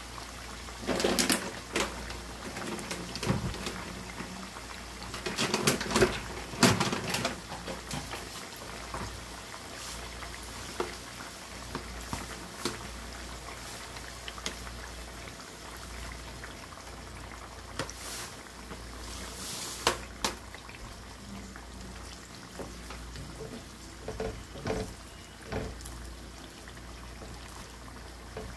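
Sweet potato slices frying in a pot of hot oil, bubbling and sizzling steadily. A wooden spatula knocks and scrapes against the pot in bursts during the first several seconds, and about halfway through sugar is poured in from a plastic bag.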